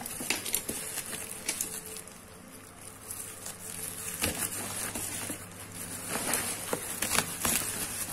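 Plastic bubble wrap being pulled and handled, rustling with scattered sharp crackles.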